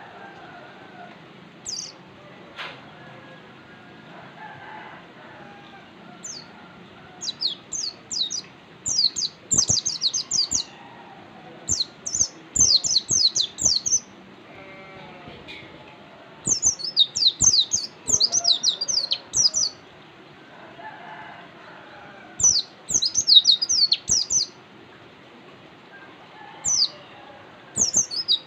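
White-eye (pleci) songbird singing: rapid, high-pitched chattering phrases of quick down-slurred notes, each a second or few long, repeated with short pauses and growing more frequent after the first few seconds.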